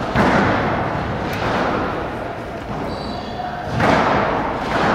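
Squash rally: the ball cracking off racquets and thudding against the court walls, echoing in a large hall, with a few shoe squeaks on the court floor.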